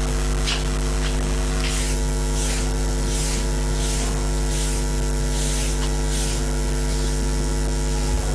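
Steady electrical mains hum with buzzy overtones, with faint short high-pitched swishes repeating roughly every two-thirds of a second through the middle.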